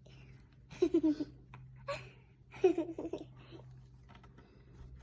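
Giggling laughter in two short bursts, one about a second in and a longer one a little past the middle.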